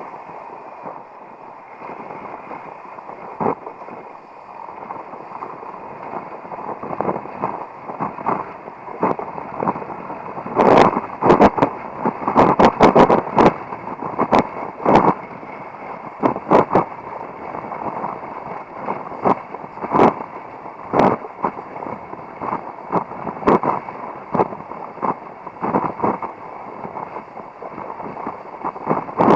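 Rush of wind and water from a kiteboard riding over choppy water, with a flurry of sharp slaps and knocks about a third of the way in as the board hits the chop, then more scattered slaps.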